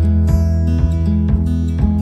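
Instrumental background music, with a strong low bass and new notes starting a few times a second.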